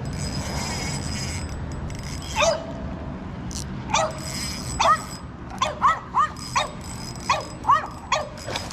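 A dog yipping: a string of short, high yips that starts a couple of seconds in and comes faster toward the end, about a dozen in all.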